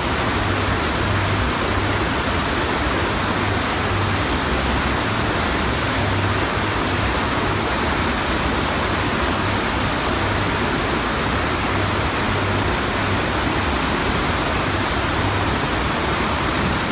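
Steady rush of water from an artificial sheet-wave machine, a thin layer of water pumped fast up the wave ramp, with an uneven low rumble underneath.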